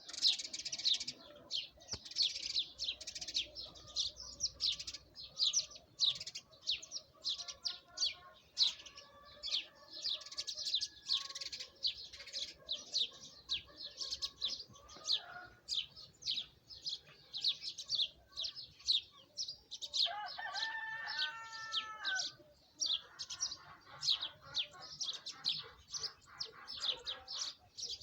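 Chickens: high, short chirps come several a second throughout, over drawn-out hen calls. A louder chicken call lasts about two seconds, about twenty seconds in.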